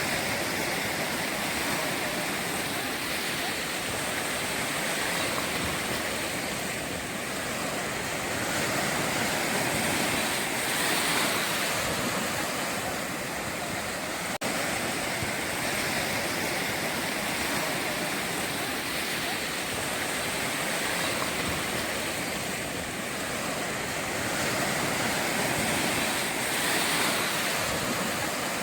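Ocean surf: waves breaking and washing up the shore in a steady rush that swells louder twice, with a brief dropout about halfway.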